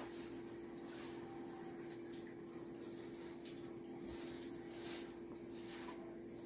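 Tap water running steadily, with a constant low hum, under faint rustling and squishing of a hand working flour and water into dough in a stainless steel bowl.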